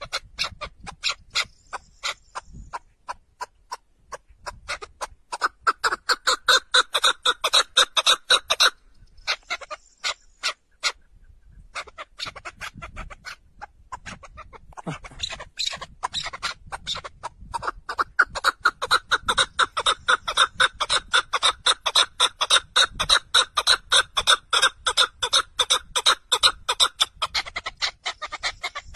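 Red-legged partridge calling: long runs of rapid, rhythmic chucking notes, several a second, broken by a lull of a few seconds about a third of the way through.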